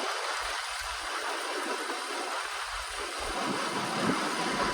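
Steady rushing noise of a small fishing boat under way at sea, with a faint low rumble coming and going.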